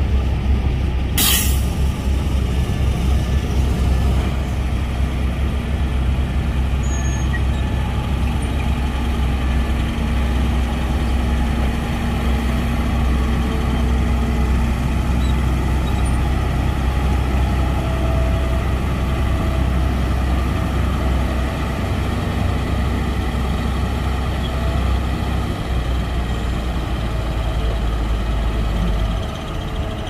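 Heavy diesel engine of road-construction machinery running steadily with a deep low drone. About a second in there is a short, sharp hiss of compressed air. The drone drops a little just before the end.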